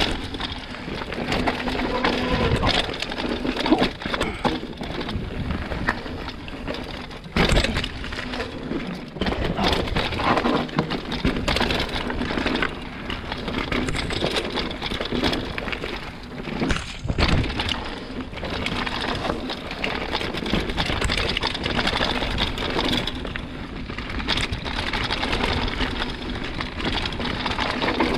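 Hardtail mountain bike riding over rough dirt singletrack: tyres on dirt with a continuous rattle and many knocks from the chain and frame over bumps.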